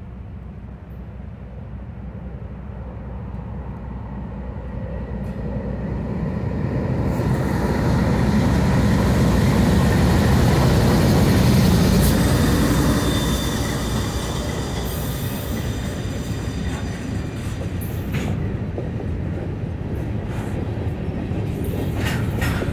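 A freight train approaching and passing close by. The rumble of its diesel locomotives grows louder and peaks about half-way through as they go by. Then the freight cars roll past with a steady rumble of wheels on rail and a faint, thin wheel squeal.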